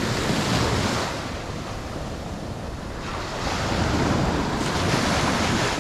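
Ocean waves washing up on the shore at high tide, surging in twice, with wind buffeting the microphone.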